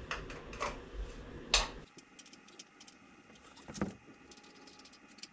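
Hand tools clinking on the rear axle nuts of an electric dirt bike as they are locked up: a few sharp metallic clicks in the first second and a half, then faint scattered ticks and one dull knock near the middle.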